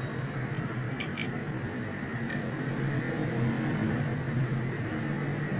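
Steady low rumble and hiss, with a few faint clicks about a second in and again a little after two seconds as a wire is worked onto the horn's spade terminals.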